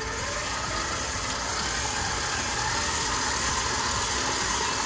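Bowl-lift stand mixer's motor running steadily, its flat paddle beating a wet batter of creamed butter, eggs and mashed banana in a metal bowl.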